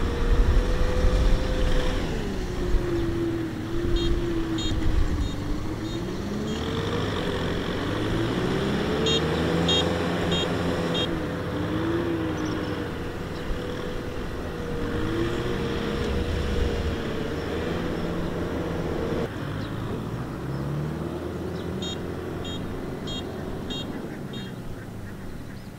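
Kubota M6040 tractor's diesel engine running while pulling a trailer loaded with rice sacks, its pitch rising and falling again and again as the load and throttle change. A few short high chirps sound over it.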